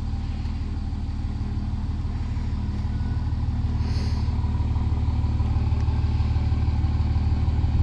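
Pickup truck engine running steadily at low speed while backing a travel trailer, growing gradually louder.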